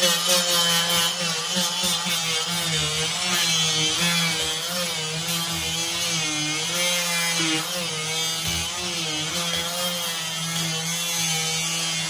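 Oscillating multi-tool with a scraper blade running continuously, a steady buzz that wavers slightly in pitch as the blade is worked back and forth under a peel-and-stick vinyl floor tile, lifting it off.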